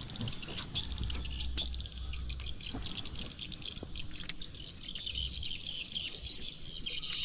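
Birds chirping and insects trilling in a steady chorus of rapid high chirps, over a low rumble that comes and goes, with a few faint ticks.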